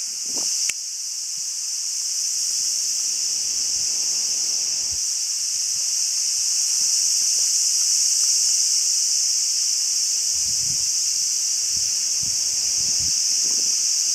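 Insects shrilling in the surrounding woods, a loud, steady, high-pitched chorus that swells a little and never breaks. A sharp click comes just under a second in, and a few low handling thumps come near the end.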